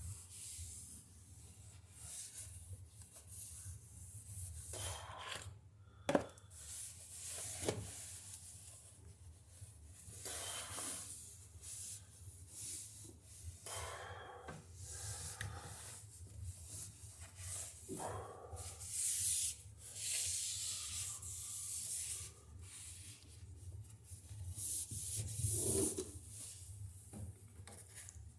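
Irregular rubbing and scraping of parts being handled, broken by two sharp knocks about six and eight seconds in, over a steady low hum.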